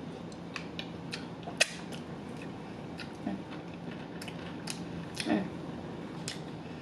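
Close-miked eating sounds of extra crispy fried chicken: scattered small crackles and mouth clicks from chewing, with a sharper crunch about one and a half seconds in and a short murmur of voice about five seconds in.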